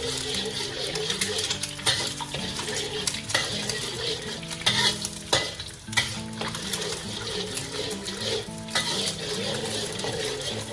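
Eggs frying in hot oil in a wok, sizzling steadily while they are stirred into a soft scramble, with repeated scrapes and knocks of the utensil against the wok.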